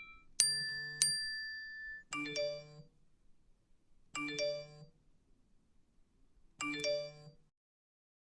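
iPhone alert chimes: two bright chime notes ringing out in the first second, then three identical short two-note chimes at even intervals of about two and a half seconds.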